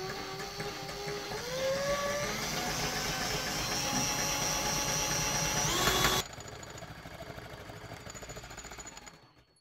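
Cordless drill running a homemade scroll saw, its motor whine rising in pitch as it speeds up and then holding steady. About six seconds in the sound cuts abruptly to the quieter, rapid even strokes of the scroll saw blade cutting plywood, which fade out near the end.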